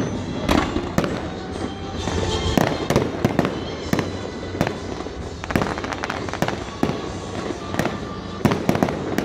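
Aerial fireworks display: a dense barrage of shells bursting, with sharp bangs about twice a second over a continuous crackle and rumble.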